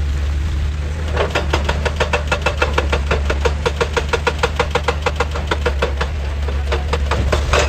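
Excavator engine running steadily under a rapid, even hammering of about ten strikes a second that starts about a second in and stops around six seconds, with a short loud burst near the end.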